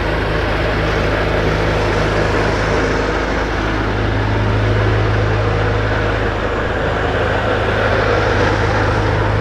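A vehicle engine running steadily, a constant low drone with no change in pitch or level.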